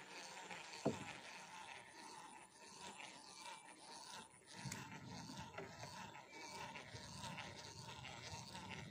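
Baitcasting reel being cranked to wind in line, a faint continuous scratchy whirring, with one sharp click about a second in.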